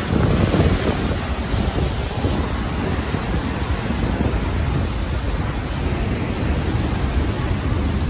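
Steady rush of a large waterfall in full flow, with wind buffeting the microphone.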